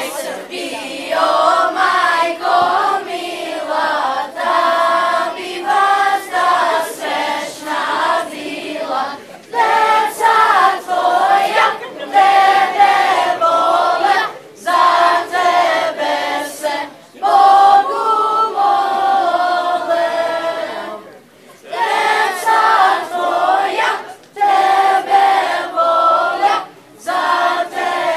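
Children's choir singing together, in phrases a few seconds long with short breaks for breath between them.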